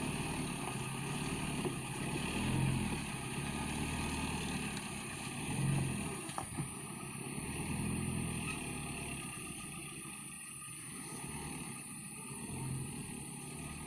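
Old truck's engine labouring, its low drone swelling and easing several times, fainter in the second half.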